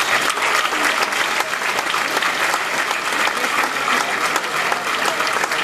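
A crowd applauding steadily: a dense, even patter of hand claps.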